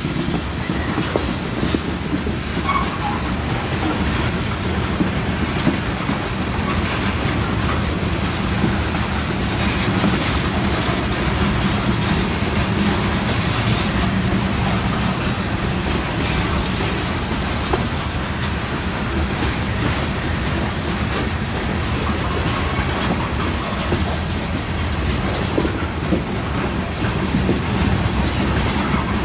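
Norfolk Southern freight train of covered hopper cars rolling past close by: a steady rumble of steel wheels on rail, with wheels clacking over the rail joints.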